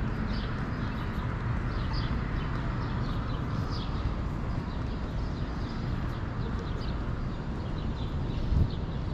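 Downtown street ambience: a steady rumble of city traffic, with short high chirps repeating about once a second and a brief louder thump near the end.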